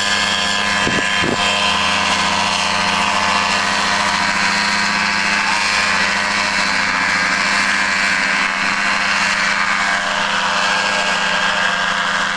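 Paramotor engine and propeller running steadily at an even pitch as the pilot launches under the wing.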